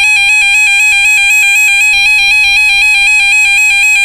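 A weather alert radio, the Radio Shack 12-262, sounding its electronic alarm: a loud, continuous shrill tone with a rapid warbling edge.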